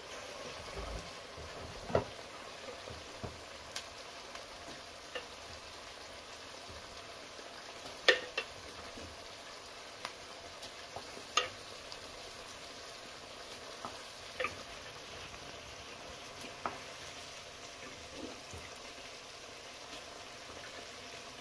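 Onions and beans frying in oil in a pot, a steady sizzle, with scattered sharp knocks of a wooden spoon against a clay bean pot and the frying pot as cooked beans are spooned in; the loudest knock comes about eight seconds in.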